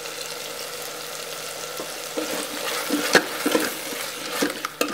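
Tomatoes and spices sizzling steadily in hot oil in a stainless steel Instant Pot inner pot on sauté. From about two seconds in, a silicone spatula stirs through them, with short scrapes and knocks against the pot.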